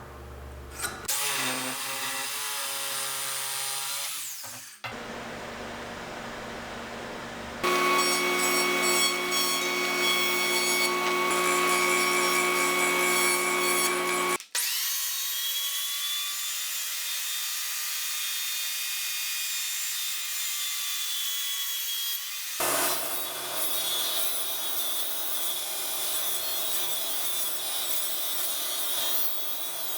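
Power tools cutting and working 2x4 construction lumber, in a series of short clips that change abruptly from one to the next. Each clip is a steady motor whine over the noise of the wood being cut.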